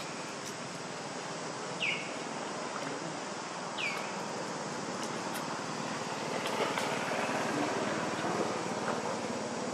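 Outdoor ambience: a steady hiss, with two short chirps that each fall sharply in pitch, about two seconds apart.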